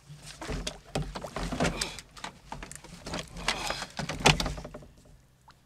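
Irregular knocks, clunks and scraping of gear handled against a kayak's hull, with a low rumble beneath, while a hooked fish is fought from the boat.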